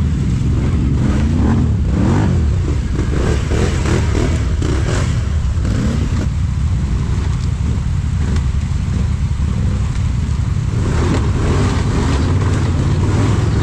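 Can-Am ATV engine running under load and revving, its pitch rising and falling a few times in the first few seconds, then pulling steadily.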